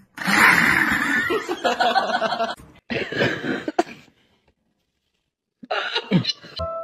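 Small white fluffy dog snarling and barking in harsh bursts over the first few seconds. A shorter, different sound follows near the end.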